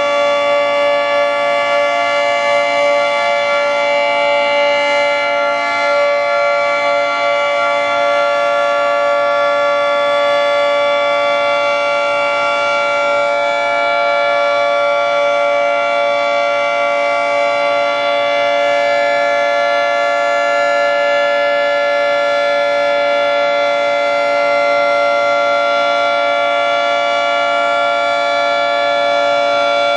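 Federal Signal 3T22 three-tone electromechanical outdoor warning siren sounding a steady, unwavering chord at full speed: the Full Alert (steady alert) signal.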